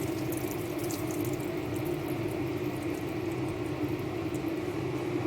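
Chicken in tomato sauce simmering and bubbling in a pan, over a steady low hum.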